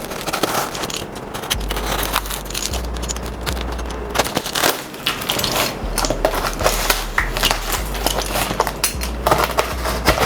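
Box cutter slicing open the packing tape on a cardboard carton, with irregular scraping and crackling of tape and cardboard throughout.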